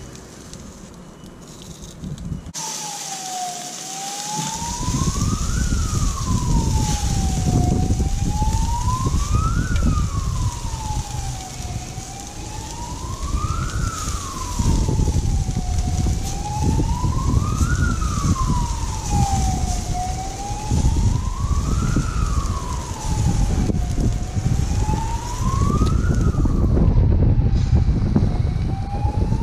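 A siren wailing in slow rises and falls, one about every four seconds, starting about two seconds in. Under it is a steady hiss and a low rumble from marinated quail sizzling on a charcoal grill.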